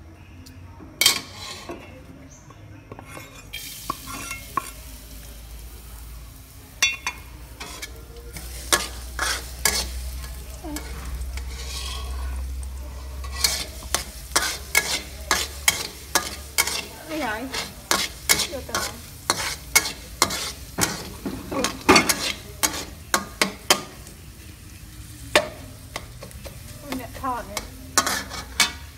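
Chopped aromatics sizzling in oil in a metal wok while a metal spatula scrapes and clinks against the pan. The sizzle sets in about four seconds in, and the clinks come thick and fast through the middle and second half.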